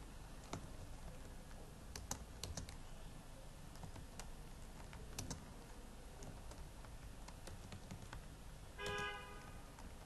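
Faint computer keyboard typing: scattered key clicks as a line of code is typed. A short pitched hum comes near the end.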